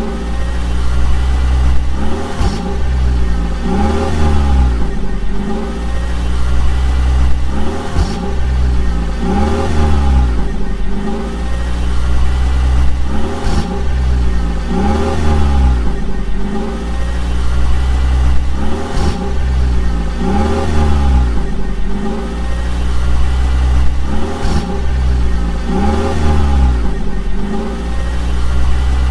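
Cartoon vehicle engine sound effect, revving up and down in a loop that repeats about every two seconds over a steady low engine hum.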